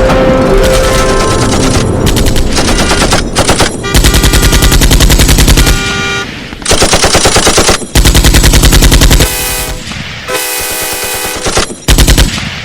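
Loud, rapid-fire rattling in stretches of one to two seconds, cut off abruptly and alternating with loud music.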